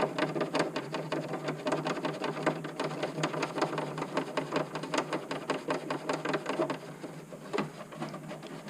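Rapid, even clicking of a ratcheting tool driving the battery box's lid screw into its thread insert, thinning out after about seven seconds as the screw seats.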